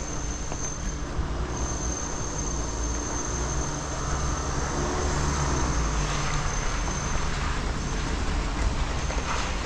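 Street traffic on a wet road: a vehicle's low rumble and tyre hiss swell as it passes about halfway through, over a thin steady high whine.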